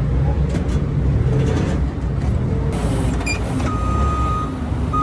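Forklift engine running with a steady low rumble. Its reverse beeper gives one long beep about three and a half seconds in and another near the end.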